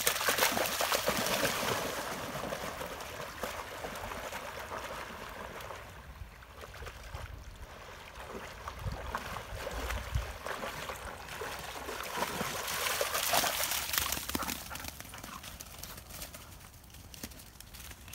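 Two dogs splashing through a shallow river as they wade and swim out after a floating retrieve, with water rushing and gurgling around them. The splashing is loudest at the start and swells again about two-thirds of the way through.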